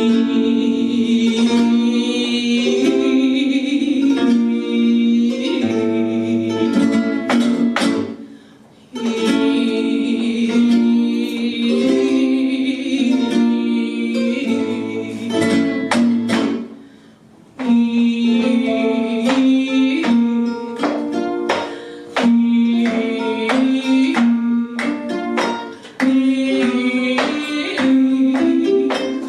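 Flamenco caña played live on acoustic flamenco guitars with a woman's cante singing over them, punctuated by sharp percussive strikes such as palmas and cajón. The music nearly stops twice, briefly, before starting again.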